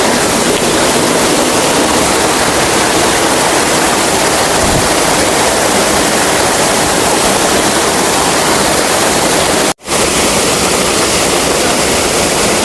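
Waterfall rushing, a loud, steady roar of falling water that briefly cuts out about ten seconds in.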